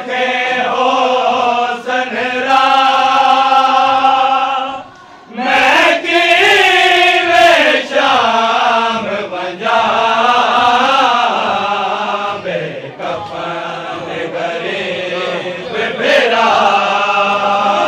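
Group of men chanting a Muharram noha together, a lead voice at the microphone with the others joining in on long, drawn-out notes. There is a short break about five seconds in before the chant resumes.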